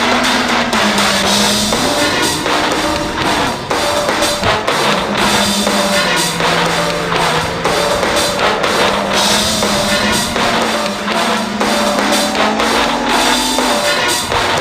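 Rock music with a busy drum kit playing a steady beat under a held, sliding low melody.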